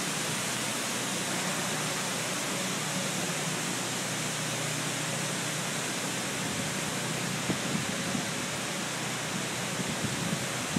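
Steady hissing rush of floor-mounted foam grate nozzles spraying foam solution across a hangar floor, a few small splashy bumps near the end.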